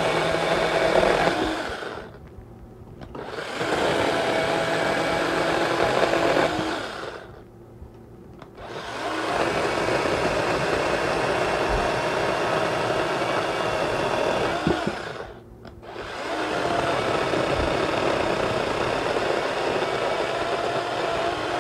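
Battery-powered 8-inch OLMLMO mini chainsaw running and cutting through a green apple branch, in four runs that each stop briefly between cuts.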